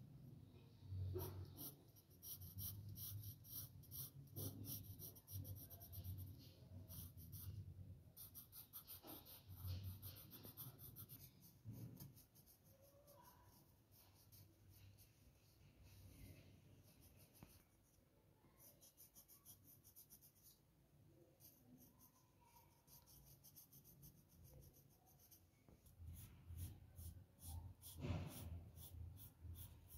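Faint graphite pencil scratching on paper in quick, rapid repeated shading strokes. The strokes come in runs: busy for the first dozen seconds, sparse through the middle, and busy again near the end.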